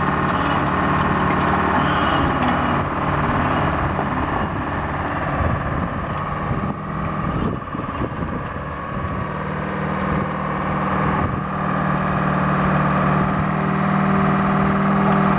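Hein-Werner C12HD crawler excavator's diesel engine running steadily. The engine note dips and wavers briefly about halfway through, then settles back to an even run.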